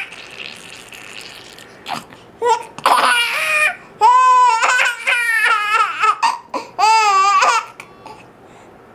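A young child's high-pitched squealing laughter in several long, drawn-out calls rising and falling in pitch, broken by short sharp catches of hiccups.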